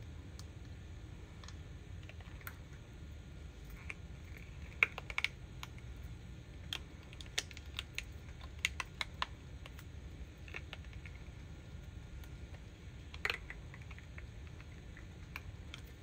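Scattered sharp clicks and taps as hands flex and peel a silicone mold off a cured resin tea light holder. They come in irregular clusters over a faint low hum.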